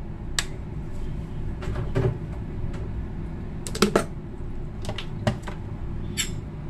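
A dozen or so light, sharp kitchen clicks and knocks, scattered in small clusters, as utensils and containers are handled, over a low steady background hum.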